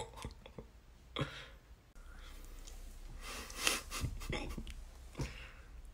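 A man laughing softly under his breath: a few short, breathy puffs through a smile, about a second in and again a little after the middle.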